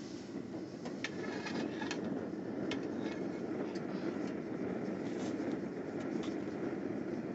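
Forge running with a steady rushing noise, with a few short light clicks scattered through it.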